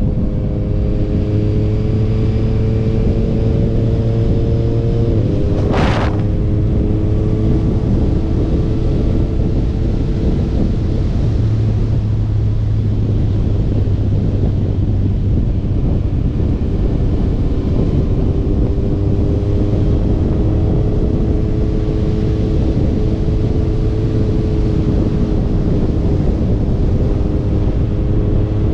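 Motorcycle engine pulling under way over steady wind and road noise, its pitch climbing slowly. About five seconds in the pitch drops sharply at a gear change. It fades back in the middle, then picks up and climbs again.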